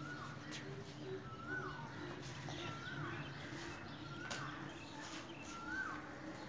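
A bird calling over and over, each call a short note that rises and then drops, about once every second and a half.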